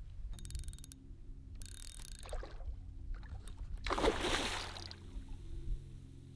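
A small boat's motor running steadily, with a rapid run of clicks just under a second in and a short rush of noise about four seconds in.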